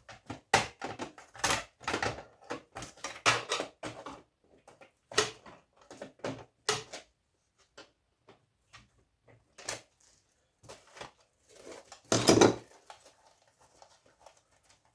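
Plastic and metal parts of an old electronics casing clicking and clattering by hand as a circuit board is worked loose from its plastic risers. There is a quick run of clicks and knocks, then sparser ones, with one heavier knock near the end.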